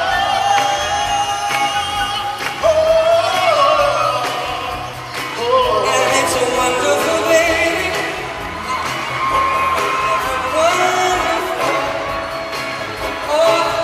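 Live band performance with a male lead vocalist singing a pop-soul song over the band.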